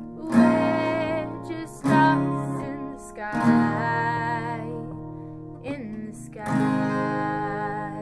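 Acoustic guitar strumming four chords, each left to ring and fade. The last comes about three seconds after the third, as the song's closing chords die away.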